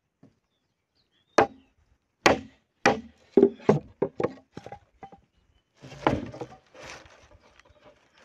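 Bolo knife (machete) chopping into a bamboo pole to split it: about ten sharp blows, coming quicker after the first few, then a longer rough crackling about six seconds in as the cane starts to split.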